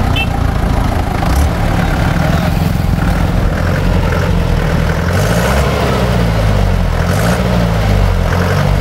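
Old army jeep's engine running, then revved up and down several times from about five seconds in as the driver tries to launch it and lift the front wheels.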